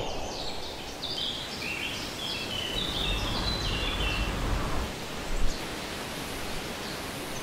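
Outdoor forest ambience: a steady rustling hiss, with small birds chirping in quick runs of short high notes during the first four seconds or so.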